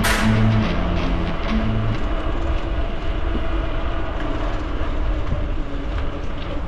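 Background music with a cymbal crash and bass notes that stops about two seconds in, leaving a steady rumble of wind and tyre noise from the moving mountain bike.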